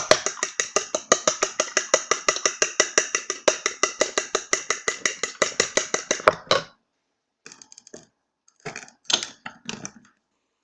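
A fork beating eggs in a bowl: a fast, even clicking of the fork against the bowl, about seven strokes a second, which stops about six and a half seconds in and is followed by a few scattered taps and clinks.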